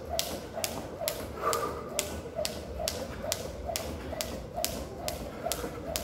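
Jump rope skipping, the rope slapping the concrete floor once per turn in a steady rhythm of sharp clicks, a little over two a second.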